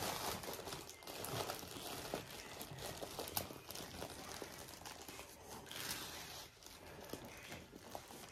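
Diamond painting canvas under its clear plastic cover film being rolled up by hand: faint, irregular crinkling and rustling of the plastic and canvas.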